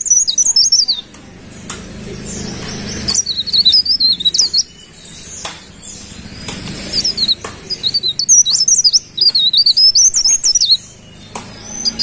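Cikrak daun (a leaf warbler) singing: high, rapid twittering phrases of quick up-and-down notes, in four bursts with short pauses between them.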